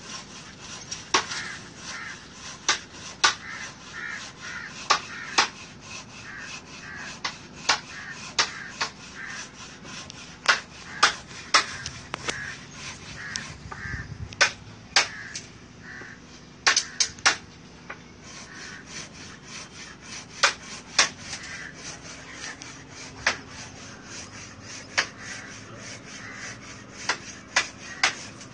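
Irregular sharp clicks and rubbing from a phone being handled close to its microphone. Behind them, crows caw now and then.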